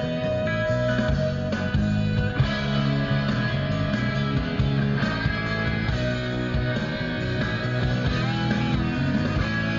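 Background music: a rock track with guitar.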